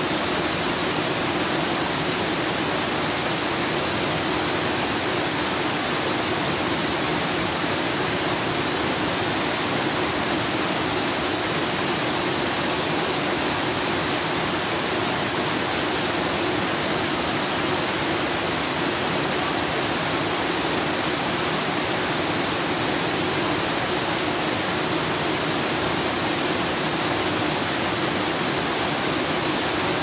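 A small waterfall cascading over stepped rock ledges into a shallow creek, giving a steady, even rush of water.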